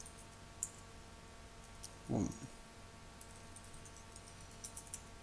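Faint computer keyboard typing: scattered light key clicks in small clusters. There is one brief low sound a little over two seconds in.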